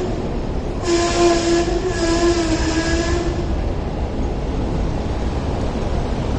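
Hong Kong double-deck electric tram running on street track, with a steady pitched squeal from about one second in to about three seconds in, over a steady street-traffic rumble.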